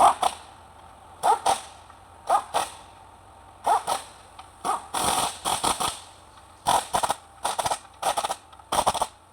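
Metal tools and engine parts clanking and clinking, many sharp strikes, often in quick pairs, each with a brief metallic ring.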